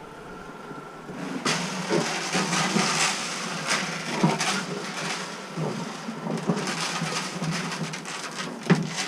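Dry feed being poured into a feeder: a dense rattling and crunching full of small clicks that starts about a second and a half in.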